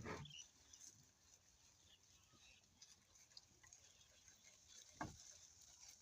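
Near silence with a faint steady hiss, broken by one brief sound about five seconds in.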